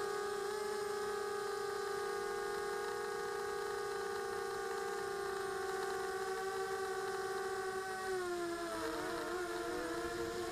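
Quadcopter's electric motors and propellers whining steadily in flight, heard from the camera on board. About eight seconds in, the pitch dips and starts wavering up and down as the motor speeds change.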